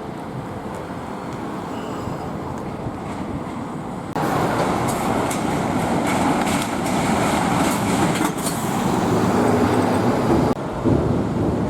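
Steady mechanical rumble of heavy vehicle machinery. About four seconds in it abruptly turns louder, with a rattling clatter, then drops off suddenly near the end.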